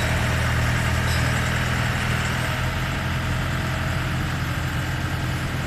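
Yanmar YH700 combine harvester's diesel engine running steadily, its note settling slightly lower about two and a half seconds in.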